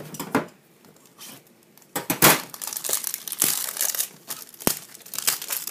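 Plastic wrapping on a new pack of top loaders (rigid plastic card holders) crinkling and tearing as it is opened, starting about two seconds in, with a sharp click near the end.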